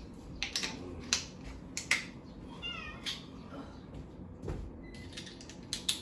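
Scattered clicks and small knocks of a screwdriver and metal parts on a dishwasher's door frame as it is taken apart. A short, wavering, high-pitched squeal comes about two and a half seconds in.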